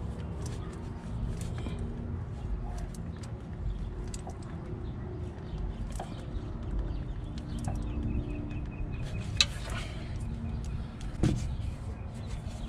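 Small clicks and taps of hand work on a Duramax diesel glow plug as it is threaded in by hand and its connector handled, with two sharper clicks near the end. Outdoor background with birds calling.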